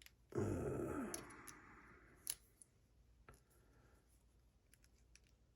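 Metal scraping against metal for about a second, fading out, then a few sharp metallic clicks and faint ticks, from tools working to pry a C-clip off a lock that is being taken apart.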